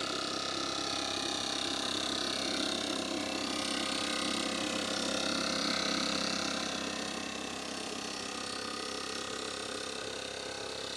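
Small two-stroke engine of a backpack power blower-spreader running steadily at working speed, blowing granular fertilizer out through its hose.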